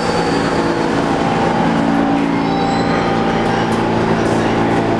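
Kawasaki R160B subway train rolling slowly into the station and braking to a stop: a steady electric hum and whine from its propulsion over the rumble of steel wheels on rail.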